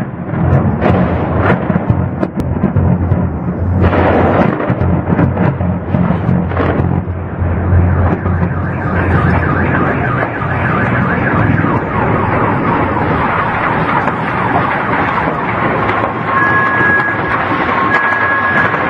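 Loud, steady roar of low-flying military aircraft overhead. A car alarm sounding in two alternating pitches comes in about halfway and is clear near the end.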